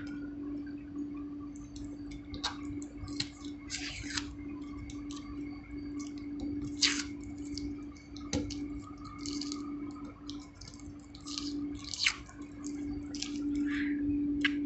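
Close-up chewing of a crunchy half-ripe fresh date: irregular wet crunches and mouth clicks. A steady low hum runs underneath.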